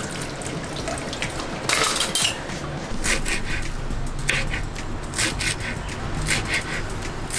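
Kitchen utensils clattering: a run of short sharp knocks and clinks, several a second, from about three seconds in, over a steady hiss.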